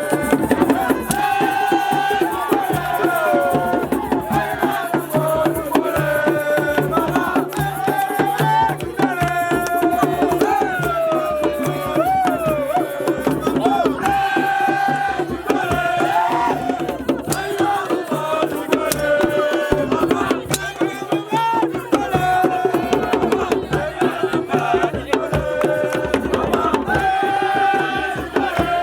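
Singing over dense, fast drum and rattle percussion.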